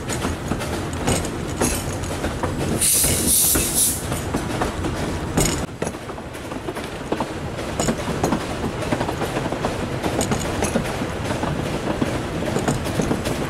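Narrow-gauge Talyllyn Railway passenger carriage running along the track, its wheels rumbling and clicking and rattling over the rails. A short hiss comes about three seconds in and lasts about a second.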